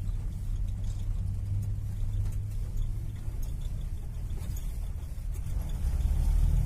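Four-wheel-drive jeep driving over a sandy track, heard from inside the cabin: a steady low engine and tyre rumble with light rattles. A higher engine note comes in near the end.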